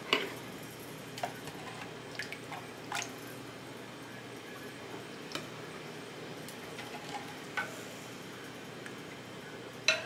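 Metal ladle clinking against a glass measuring cup as cold pickling brine is scooped up and poured into jars of sliced cucumbers, with liquid dripping and splashing between the clinks. The clicks come irregularly, about every second or two, sharpest right at the start and near the end.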